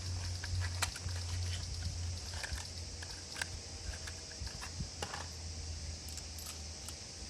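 Scattered light clicks and clinks of hand tools being handled, over a steady low hum that fades slightly and a constant high hiss.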